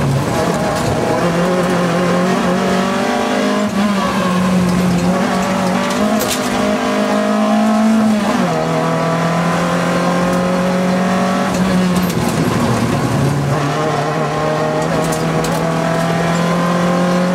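Citroën AX rally car's engine, heard from inside the cabin, pulling hard under full throttle. Its pitch climbs steadily in each gear and drops sharply at upshifts about eight and twelve seconds in.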